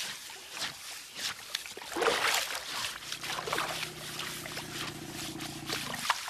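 Water splashing and trickling around an Asian elephant lying in a river during her bath. From about halfway a low, steady hum comes in and cuts off suddenly near the end.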